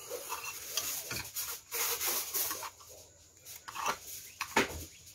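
Slurping and chewing noodles in a stretch of wet mouth sounds, then a few sharp clicks of a metal fork against the plate near the end.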